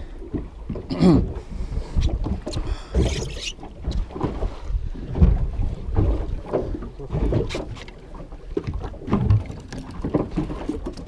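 Wind buffeting the microphone on a small boat at sea, with irregular low thumps and splashes of water against the hull.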